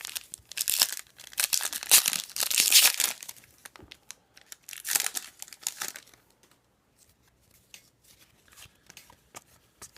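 Upper Deck hockey card pack wrapper being torn open and crinkled, in loud rustling bursts through the first six seconds, then only a few faint ticks.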